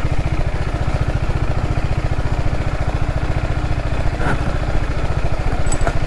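Motorcycle engine running steadily at low speed as the bike crawls over a rough, rocky dirt track.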